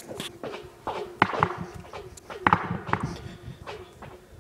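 Footsteps echoing through a culvert pipe, about two a second, each step followed by a short ringing echo that falls in pitch.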